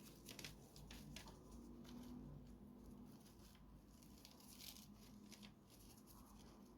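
Near silence with faint, irregular light scratches and rustles from close handwork at the table.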